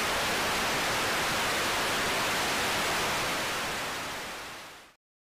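Steady static hiss, an even rushing noise with no tone or rhythm in it, starting abruptly, fading over the last second and stopping about five seconds in.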